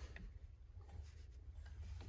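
Faint rubbing and a few light ticks as a hand handles a rubber V-belt on the step pulleys of an Atlas 10100 lathe's belt drive, over a steady low hum.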